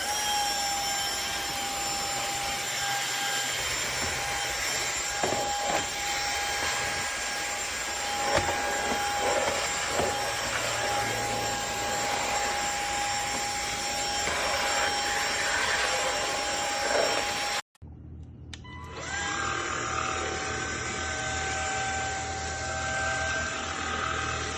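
MONSGA MV3 cordless stick vacuum cleaner running with a steady high-pitched motor whine, with a few light knocks as it picks things up. Near the end it cuts off abruptly and starts again a second later, its whine rising as it spins back up.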